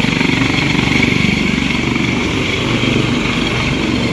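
Helicopter running close by with its main rotor turning, a steady loud engine-and-rotor drone with a rapid beat from the blades, mixed with the rushing hiss of the rotor downwash blowing dust.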